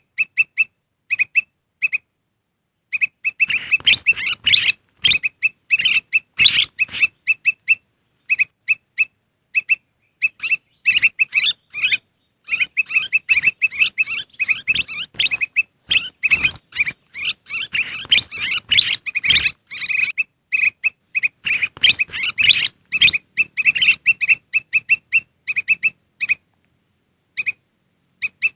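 Kutilang emas bulbuls calling: a steady run of short, repeated chirps, with long stretches of busy, overlapping chattering calls. This is a lure recording used to call wild birds in.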